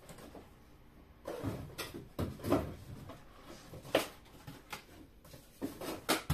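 Small objects being handled and set down on a work table: a few short knocks and clatters, starting about a second in, typical of rummaging among craft supply containers.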